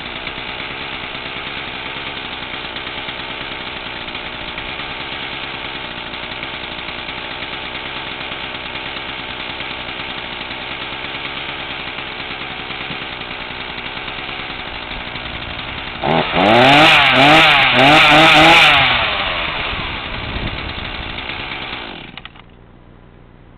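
Troy-Bilt 40cc two-stroke chainsaw idling steadily. About sixteen seconds in it is revved up in a few quick blips, then settles back to idle. Near the end it is shut off and the engine stops abruptly.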